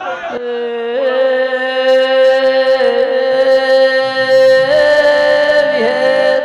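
A long held sung note in Gujarati devotional folk singing, kept at a nearly steady pitch with slight wavers, then moving to a new note about three-quarters of the way through.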